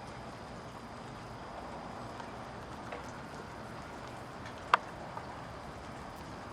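Steady hiss of wind and wet snow falling, with a low rumble, and one sharp tap about three-quarters of the way through followed by a fainter one.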